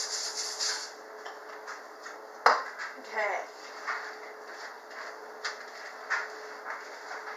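A spoon knocking and scraping in a plastic mixing bowl as a thick pretzel and melted almond bark mix is stirred and scraped out onto a foil-lined baking sheet, with one sharp knock about two and a half seconds in and several shorter scrapes after it.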